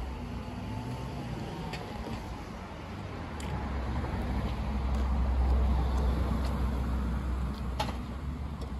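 Road traffic: a vehicle passing close by, its rumble swelling to a peak about halfway through and then easing off.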